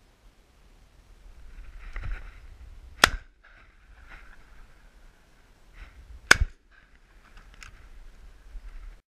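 Two shotgun shots fired at birds in flight, about three seconds apart, loud and close to the shooter.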